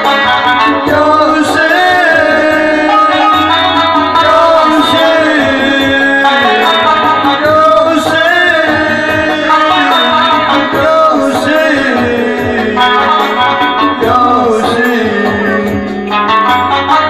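Amplified instrumental music in a Middle Eastern style: an electronic keyboard plays an ornamented, winding melody over a steady drum rhythm, an instrumental break in a religious song for Imam Hussein.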